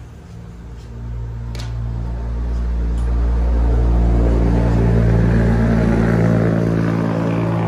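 An engine running with a steady low hum, swelling over the first three seconds and then holding loud.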